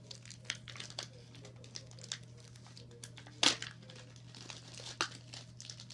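Small toy packaging and its tape being crinkled and torn open by hand in quick, irregular rustles, with one louder rip about three and a half seconds in.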